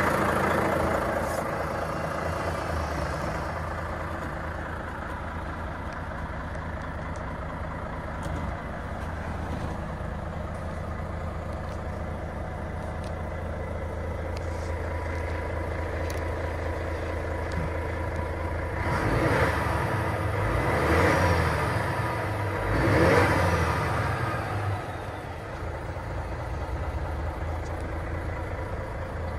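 Volvo FH500 truck's 13-litre straight-six diesel idling steadily, heard from inside the cab. About two-thirds of the way through it is revved briefly three times, the pitch rising and falling each time.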